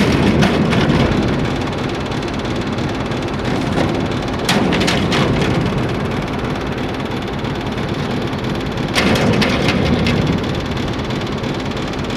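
Diesel-electric shunting locomotive (060-DA/LDE2100 with a 12-cylinder Sulzer 12LDA28 engine) running under load as it moves grain hopper wagons at low speed, with a steady rumble of the train. Three times, about every four and a half seconds, the rumble swells with a short burst of metallic clicking and clatter from the wagon wheels.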